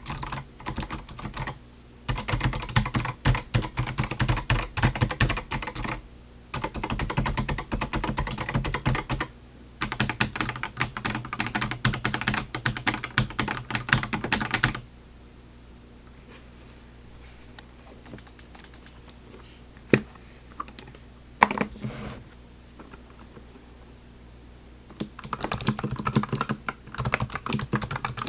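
Fast typing on a mechanical keyboard with clicky Kailh Box White V2 switches, which click on both the press and the release, in runs with short breaks. It stops about halfway through, a few single key clicks follow, then typing resumes near the end on a Keychron V5 fitted with TTC Brother Clicky switches, which click only on the press.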